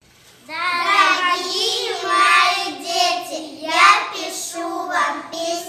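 A child singing a song with held, pitched notes, starting about half a second in.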